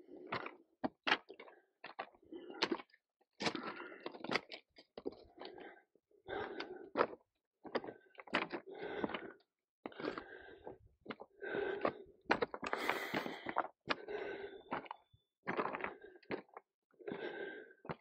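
Footsteps crunching and clicking on a trail of loose broken rock talus, one step after another at a steady walking pace.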